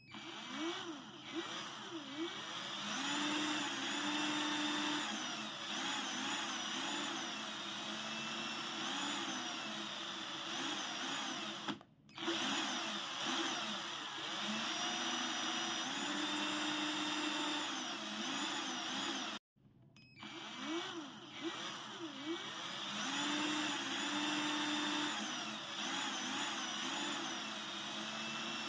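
Electric drill running, its motor whine rising and falling in pitch as the speed changes. The sound dips briefly about 12 seconds in and cuts out for a moment around 19 seconds before the drill runs on.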